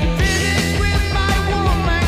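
Rock music track with a steady beat and a pitched lead line.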